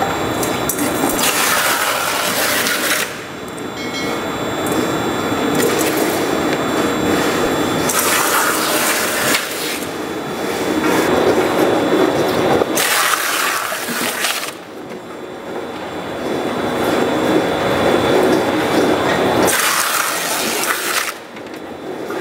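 Industrial scrap-tire processing machinery running and working on tires, a loud mechanical noise that changes character every few seconds.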